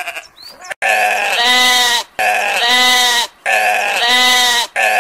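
A sheep bleating, the same bleat repeated four times in a row, each call about a second long with short gaps between them, starting about a second in.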